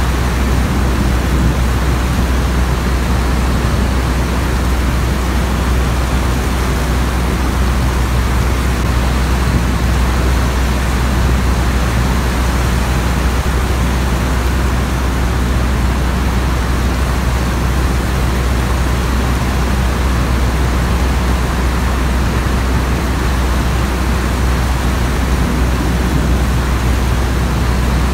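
Steady, unchanging drone of a propeller aircraft engine, a deep low hum, blended with a constant hiss of rain.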